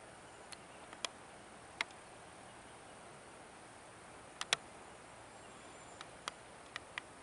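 Faint, steady outdoor hiss, broken by about ten sharp ticks at uneven intervals. The loudest ticks are a close pair about four and a half seconds in.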